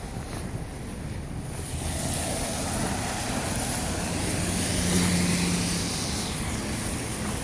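A vehicle passing: a rushing noise that swells to a peak about five seconds in and then eases off, with a low engine hum at its loudest.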